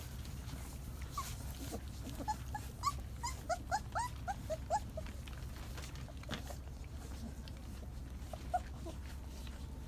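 Great Pyrenees puppies whimpering: a quick run of short, high, rising-and-falling whines, about ten of them, between two and five seconds in, and a couple more near the end.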